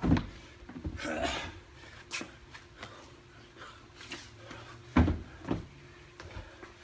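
Heavy thumps: one right at the start, then two about five seconds in, half a second apart, with rustling and a few light knocks between them.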